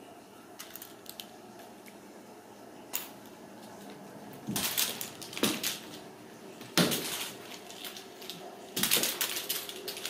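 Small hard objects clattering and rattling in three short bursts, about halfway through, a little later, and near the end.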